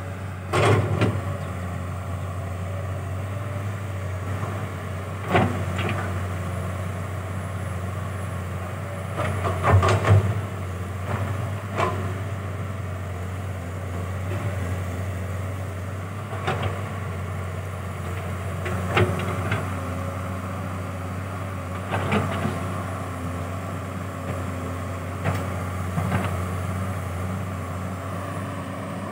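Komatsu PC200-7 hydraulic excavator at work: its diesel engine runs at a steady low drone while the machine swings and spreads soil, with a sharp clank or knock every few seconds, the loudest about ten seconds in.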